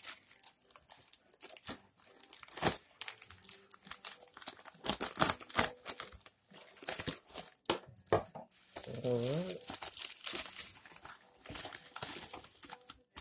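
USPS Priority Mail padded plastic mailer crinkling and crackling in irregular spurts as hands open it and reach inside for the contents.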